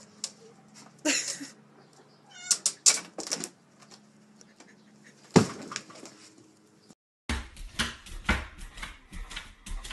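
A cat meowing briefly a few seconds in, among scattered knocks and scrapes, with a sharp thump about five seconds in. After a short break, a run of clattering knocks.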